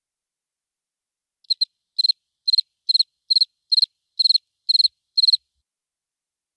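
Cricket chirping: a run of nine short, high, pulsing chirps at about two a second, starting about a second and a half in and stopping abruptly.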